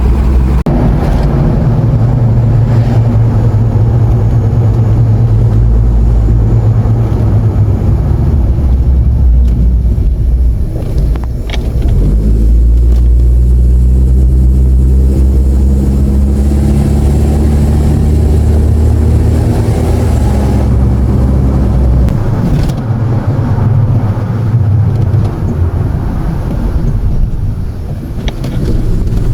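A car driving, its engine note rising and falling over a heavy low rumble of engine and road noise.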